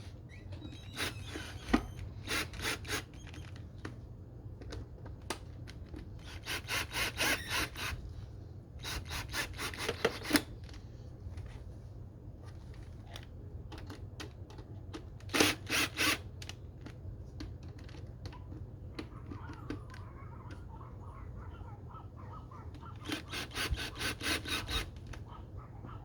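A hand tool ratcheting as screws are turned, in several short bursts of rapid clicking, with quieter scraping and handling noise between the bursts.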